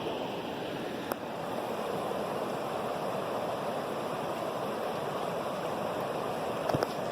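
Steady rush of flowing river water. A sharp click about a second in and a few quick clicks near the end.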